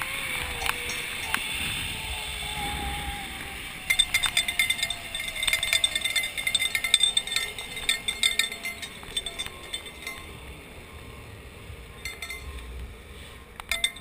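Zipline trolley pulleys running along the steel cable, a faint whine that falls slowly in pitch, with a clatter of quick metallic clinks and rattles starting about four seconds in.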